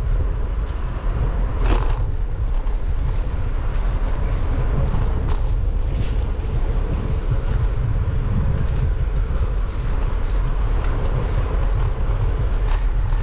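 Wind buffeting the microphone: a steady, fluttering low rumble, with a couple of brief clicks.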